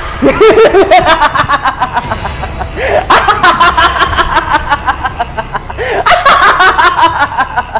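A man laughing loudly in three long bouts of rapid 'ha-ha' pulses, about five a second, each starting strong and trailing off.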